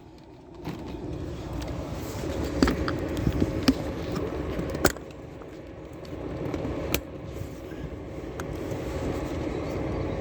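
Car engine running steadily, with a few sharp clicks over it.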